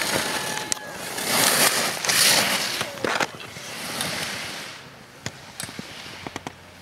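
Slalom skis scraping and carving on firm snow in several loud swells as the racer turns through the course, followed by a few sharp clicks near the end.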